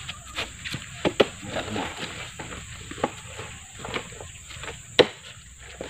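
Scattered sharp knocks and thuds from oil palm fruit bunches being handled with spiked poles: two close together about a second in, one near the middle, and the loudest about five seconds in. A steady, high insect drone runs underneath.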